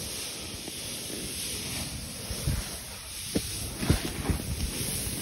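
Lib Tech Orca snowboard riding through deep powder: a steady rushing hiss of snow sliding under the board, with wind on the microphone. Several soft low thumps come in the second half.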